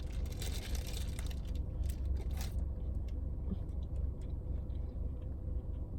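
Steady low hum of a car cabin with the engine running, under soft rustling and handling sounds as a sandwich is picked up to be eaten, mostly in the first second and again around two seconds in.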